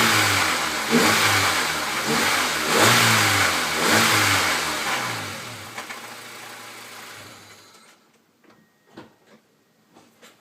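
Honda D14 SOHC four-cylinder engine revved in short blips, then falling back to a low, steady run and stopping about eight seconds in, with a few faint clicks after. At low revs this engine has a knocking rattle that the owner hopes is coming from the alternator or its pulley.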